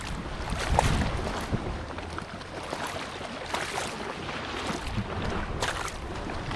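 A person wading through shallow river water, with a few splashes spread over a steady background of moving water and wind.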